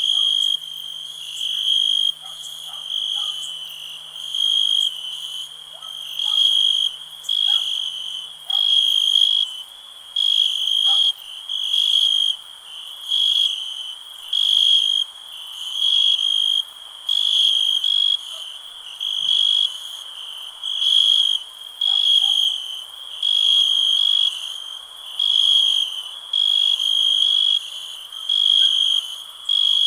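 Crickets chirping, a high, shrill trill in regular bursts about once a second, over a faint background hum of insects.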